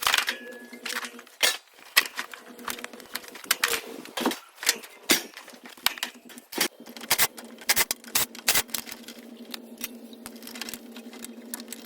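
Irregular metallic clicks and clanks of tools on the sheet-metal panels and parts of an air conditioning condenser being taken apart, over a steady low hum.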